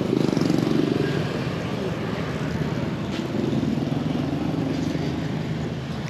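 Street traffic: engines of motor vehicles passing close by, the first loudest at the start and fading away, another passing about midway.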